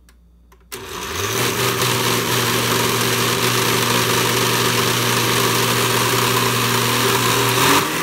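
Oster countertop blender's motor switched on under a hand press about a second in, spinning up with a rising whine and then running loudly and steadily as it blends a thick banana and milk drink. Near the end the motor note dips and shifts to a different speed.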